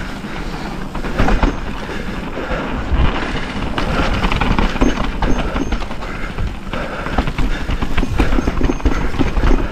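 Mountain bike riding down a rough dirt and rock trail: tyres rumbling and the bike rattling and clattering over bumps, with wind buffeting the microphone. Sharper knocks stand out about a second in and again about three seconds in.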